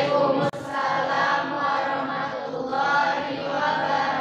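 A class of students' voices chanting together in unison, a sustained group recitation with a brief break about half a second in.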